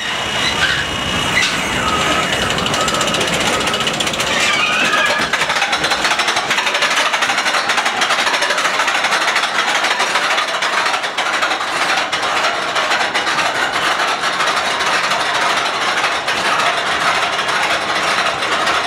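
Steel roller coaster's chain lift clattering steadily as the train climbs the lift hill: a fast, even run of metallic clacks from the chain and the anti-rollback ratchet.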